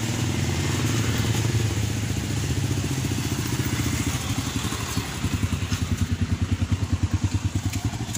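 Small motorcycle engine pulling a loaded vendor cart, running steadily and then pulling away with an even pulsing beat of about seven a second in the second half.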